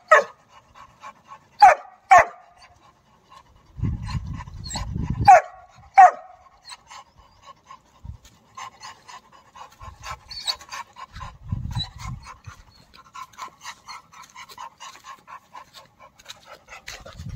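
Yellow Labrador puppy barking sharply about five times in the first six seconds, then panting quickly and steadily. A low rumble comes in about four seconds in and again near twelve seconds.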